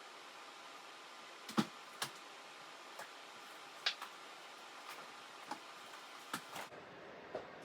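Scattered light knocks and taps, about eight of them spread unevenly over several seconds, against a steady faint hiss: a soap loaf and its mold being handled while it is demolded.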